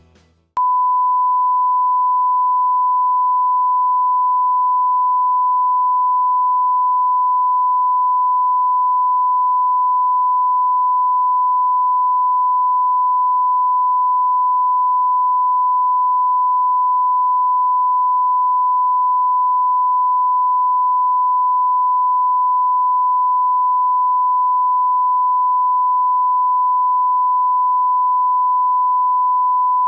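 A steady electronic test tone: one pure, unbroken beep held at a single fixed pitch, starting about half a second in.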